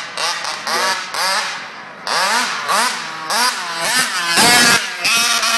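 Large-scale RC buggy's 40cc two-stroke petrol engine revving hard as it is driven, the pitch climbing in quick repeated bursts as the throttle is worked. About four and a half seconds in there is a brief, loud rush of noise.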